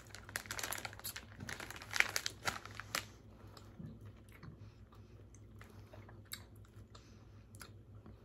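A plastic potato-chip bag crinkling as it is handled and turned over, dense and loudest for the first three seconds, then thinning to scattered faint rustles.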